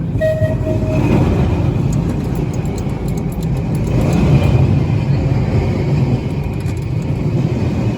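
1934 Blackpool boat tram running, its wheels and motors giving a steady low rumble, with two short beeps in the first second.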